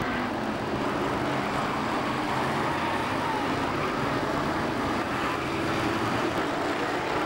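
Engines of several winged stock cars running at race speed around an oval: a steady, even din with no single crash standing out.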